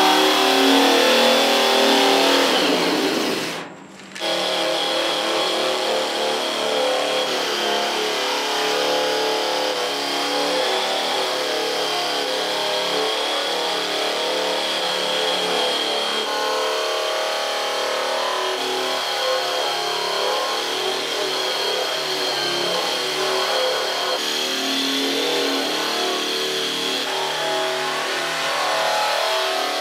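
Handheld electric stripping tool running against the sheet steel of a car fender, grinding off primer and old body filler, with a steady high whine over the grinding. It drops out briefly about four seconds in, then runs on steadily.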